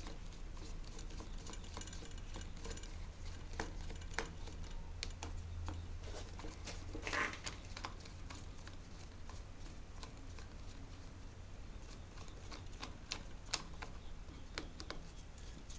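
Scattered light clicks and taps of hand tools and electrical plug parts being handled, with a brief louder scrape about seven seconds in, over a low steady hum.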